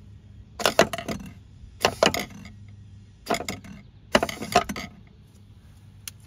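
Volvo Penta SX-A power trim/tilt pump's 12-volt electric motor, wired straight to a battery, spinning in four short bursts of about half a second each. It runs after being cleaned out with contact cleaner, so the motor still works.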